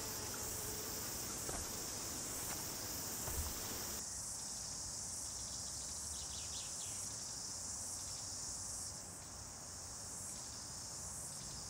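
Steady high-pitched chorus of insects in the bush.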